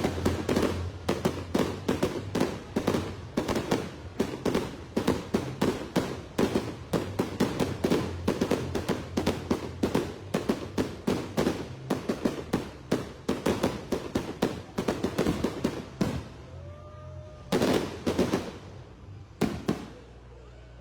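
Fireworks display: a rapid barrage of loud bangs and crackles, several a second. It thins out about sixteen seconds in, and two last loud bursts follow.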